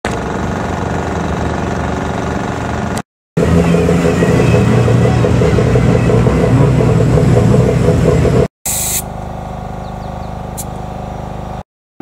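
Rally-prepared Suzuki Swift car engine running in three abruptly cut stretches: a steady idle, then a louder stretch with the engine pitch rising and falling, then a steady idle again that opens with a brief hiss.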